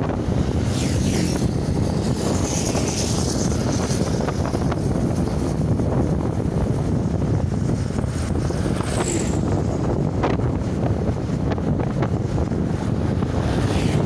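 Steady wind rush buffeting the microphone of a moving motorcycle, with the bike's engine and road noise underneath.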